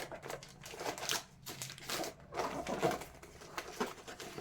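Seasoning and gravy mix packets crinkling and rustling as they are handled and sorted, with irregular light crackles and taps.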